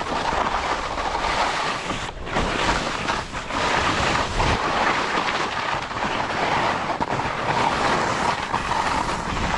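Skis sliding and scraping over rough snow on a fast downhill run, a steady hiss that dips briefly a couple of times, with some low wind rumble on the microphone.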